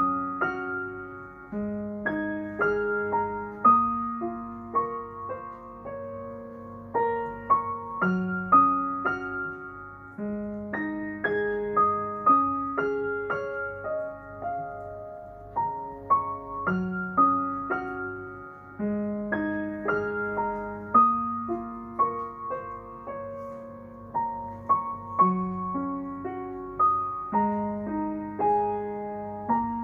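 Slow, gentle background piano music: single notes and soft chords struck and left to ring out.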